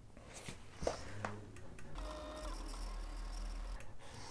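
Click-type torque wrench clicking on a lug bolt already at its set torque: two separate clicks, then about two seconds of very fast repeated clicking that runs together into a buzz.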